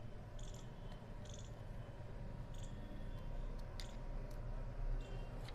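Low steady background hum with a few faint light ticks, as small screws are driven into a laptop's SSD mount by hand screwdriver.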